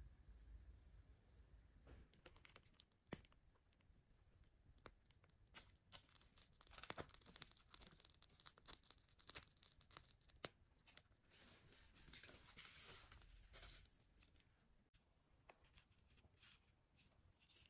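Faint crinkling and rustling of a plastic piping bag squeezed by hand while piping cream, with scattered soft clicks and taps; the rustle is busiest in the middle.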